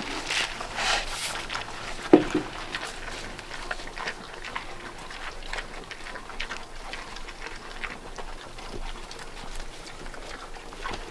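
Pigs eating feed from piles on the ground: a steady run of wet chomping and crunching, with one louder, brief call about two seconds in.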